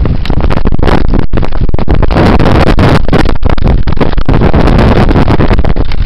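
Dog sled gliding over snow, its runners rushing and rumbling on the trail, with heavy wind buffeting on the microphone; loud and continuous, with a couple of brief dropouts.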